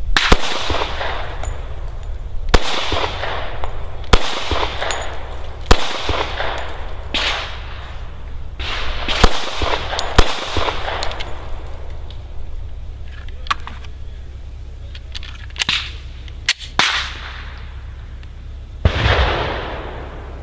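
Glock 36 .45 ACP pistol fired in slow single shots, one to two seconds apart, each shot ringing out and echoing for about a second, with a pause of a few seconds partway through.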